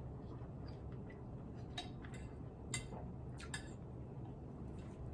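Quiet eating sounds: about half a dozen faint, sharp clicks between roughly two and four seconds in, over a low steady hum.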